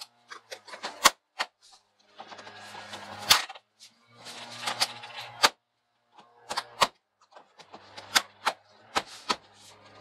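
Vinyl siding panels pushed and flexed by hand, giving many sharp plastic clicks and snaps between stretches of rubbing and scraping. The siding lock is being worked by hand, without a siding removal hook.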